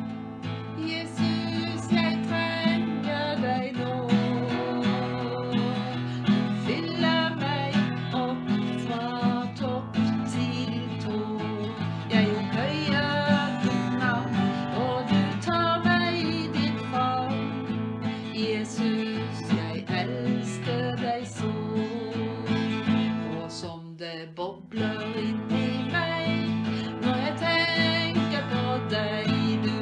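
Instrumental introduction of a worship song: guitar strumming with a melody line over it, briefly dropping away about 24 seconds in before coming back.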